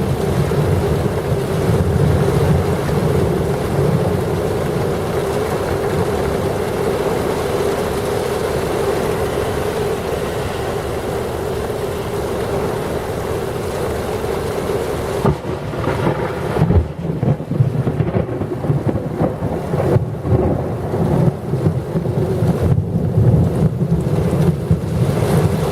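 Heavy thunderstorm rain pouring down with gusty wind. About fifteen seconds in, the hiss of the rain thins and the sound turns gusty, surging and dropping irregularly as wind buffets the microphone.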